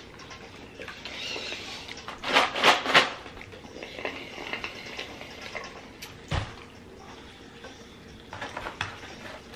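Drinking through a straw from a cup, with three loud slurping pulls in quick succession about two and a half seconds in and smaller ones near the end. A short dull thump comes a little past the middle.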